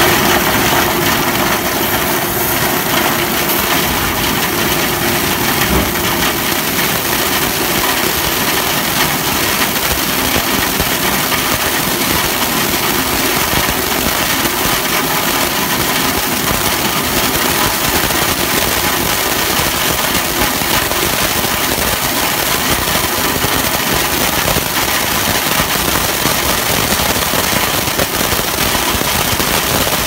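Compressed-air dislodger hose blasting inside dust-filled ductwork: a loud, steady rush of air with a dense crackle of dust and debris being driven loose.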